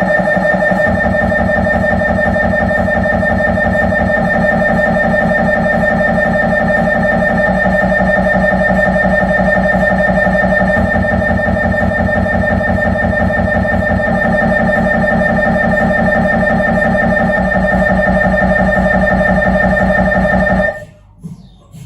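Siemens Magnetom Avanto 1.5 T MRI scanner's gradient coils running a pulse sequence: a loud, rapid, pulsing buzz at a steady pitch whose rhythm shifts several times. It stops abruptly about a second before the end, leaving faint irregular knocks.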